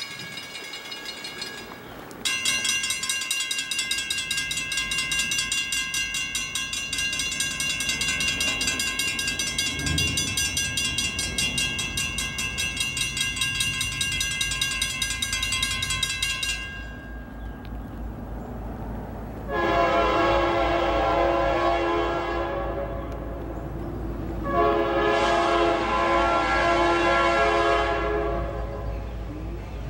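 Railroad grade-crossing bell starts ringing about two seconds in, a rapid steady ringing, and stops about fourteen seconds later with the gates down. Then the approaching train's locomotive air horn sounds two long blasts, a chord of several notes.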